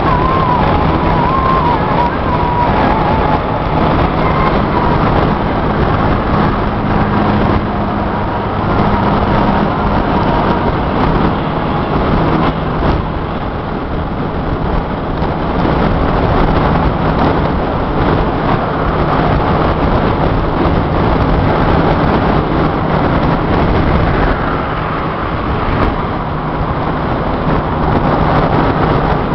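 Steady road noise inside a car cruising at highway speed: a continuous rush of tyre and wind noise over a low engine drone.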